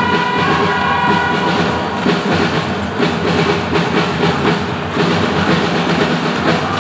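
Loud music with drums playing through a hall's loudspeakers, over a dense, steady clatter of many small knocks.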